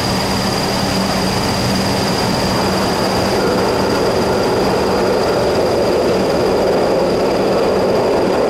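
PATCO rapid-transit train approaching through the tunnel into an underground station, its rumble growing steadily louder as it draws near.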